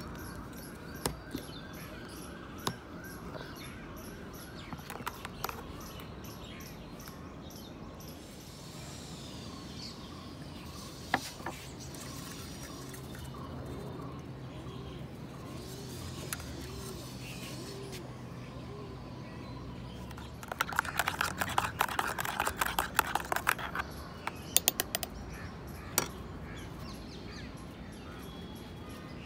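Birds calling against a steady background hiss, with a burst of rapid chattering calls about two-thirds of the way through. A few sharp clicks come in the first seconds.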